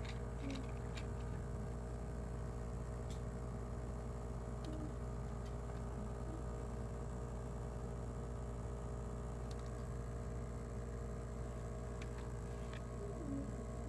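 Steady low background hum, with a few faint plastic clicks and taps as toy transforming cars are handled.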